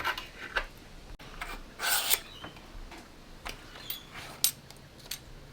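Bicycle parts being handled on the workbench: a few light metallic clicks and taps, and one short scrape about two seconds in, as the fork, steerer and headset spacers are fitted.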